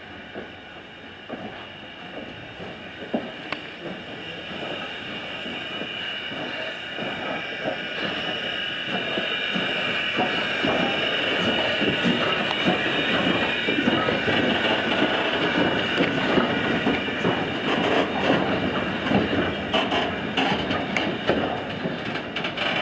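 Passenger train riding the rails: wheels rumbling and clicking over rail joints, with a steady high squeal of wheels on the rails, growing louder over the first dozen seconds.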